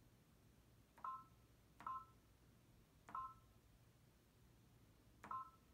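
Baby Lock Destiny II embroidery machine's touchscreen beeping as letter keys are tapped with a stylus: four short beeps at uneven intervals.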